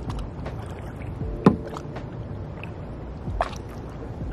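Kayak paddling on calm creek water: paddle strokes dipping and dripping over a steady low rumble, with a sharp knock about a second and a half in and a shorter splash near the end.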